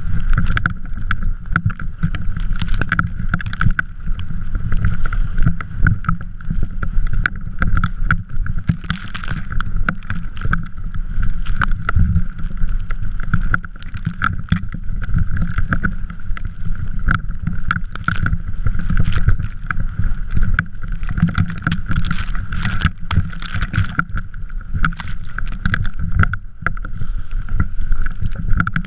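Drift trike rolling and sliding over snow: a continuous rumble broken by frequent knocks and clatters from bumps, with a steady thin whine running under it.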